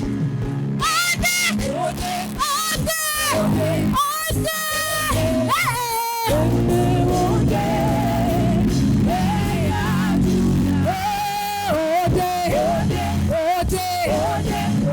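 Live worship music: a band playing under a solo voice singing long, sliding, wavering notes.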